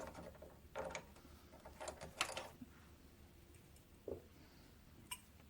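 Faint clicks and knocks of small metal tools and parts being handled on the workbench, a few scattered taps over a low steady hum.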